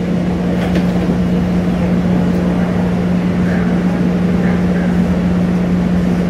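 Steady hum of a Siemens SD-400 light rail car standing with its doors open, a constant low tone over an even rumble from its onboard equipment.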